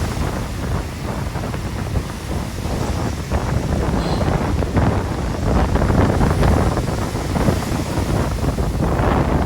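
Strong, gusty wind buffeting the microphone, with a stormy sea's surf beneath it.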